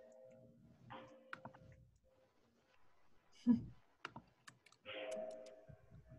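Computer keyboard keys clicking in scattered taps, with one heavier knock about three and a half seconds in, heard faintly over a video call.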